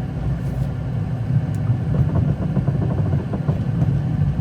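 Passenger train running: a steady low rumble with faint knocks from the wheels crossing rail joints, starting about halfway through.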